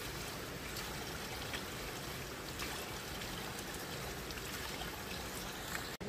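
Water from a drinking-water spring running steadily.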